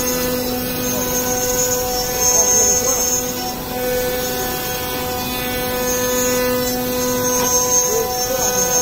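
CNC router spindle running at speed and milling into a wood-based board: a steady whine at one pitch, with a higher series of tones above it, over the hiss of the bit cutting and chips flying. The level swells and dips slightly as the cut goes on.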